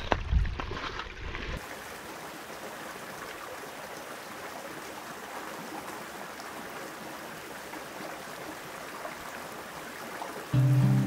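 A few low thumps in the first second or so, then the steady rush of a small creek flowing over rocks. Music comes in near the end.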